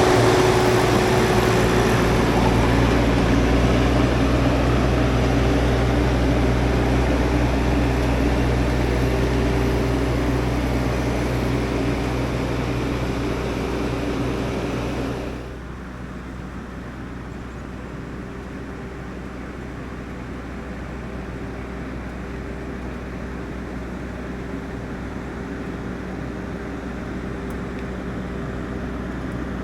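Stihl MS661 chainsaw on a Logosol chainsaw mill running steadily under load, ripping along a maple log. About fifteen seconds in the cutting noise drops off sharply, and a quieter steady engine hum carries on.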